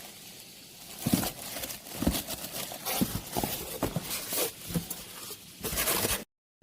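Irregular knocks, taps and rustles of ceiling fan parts and their packaging being handled, some with a hollow clatter, cut off abruptly near the end.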